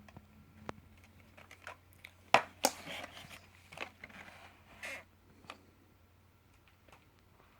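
A scattered run of clicks and knocks, the sharpest about two and a half seconds in, with a short rustling stretch just after it. A faint low steady hum runs underneath.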